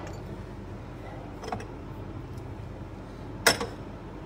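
Ceramic mugs knocking together as they are handled in a crowded cupboard: a faint tap about a second and a half in, then one sharp clink about three and a half seconds in, over a low steady background hum.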